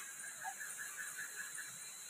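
A sharp click, then an animal's rapid pulsed call, about seven pulses a second for a second and a half, over a steady high hiss.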